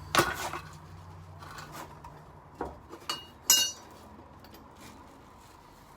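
Short length of copper pipe knocking and clinking against the pipe as it is fitted into the expanded copper pipe ends. There is a sharp knock right at the start, then a few lighter clinks, the last one about three and a half seconds in ringing briefly.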